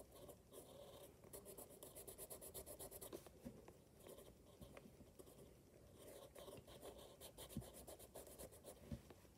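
Pencil scratching faintly on notebook paper in quick short strokes, in two spells of sketching with a pause between them. Two soft knocks come near the end.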